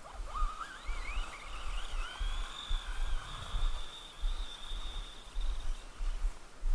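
Motor of a radio-controlled car whining as it speeds up, the pitch rising in steps over the first two seconds and then holding steady at speed until near the end, over a low, uneven rumble.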